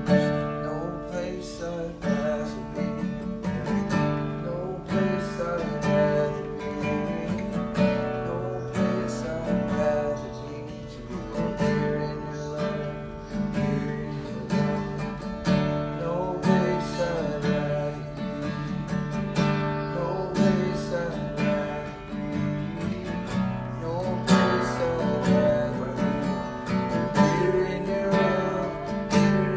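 Instrumental worship music led by strummed acoustic guitar, with sustained chords underneath.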